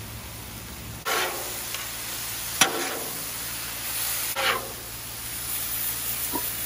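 Beef and broccoli sizzling on a hot steel Blackstone griddle. The sizzle grows louder about a second in as the sauce hits the hot surface, then a metal spatula scrapes and tosses the food, with one sharp clack against the griddle.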